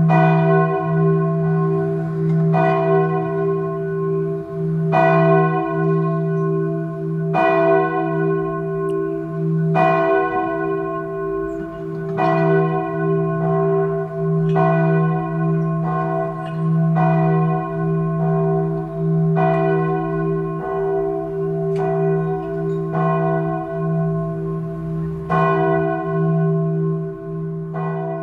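A large church bell tolling slowly, one strike about every two and a half seconds, its deep hum ringing on between strikes.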